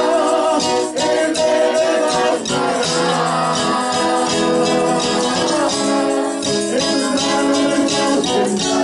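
A man singing a Spanish-language worship song, accompanying himself with steady strumming on an acoustic guitar.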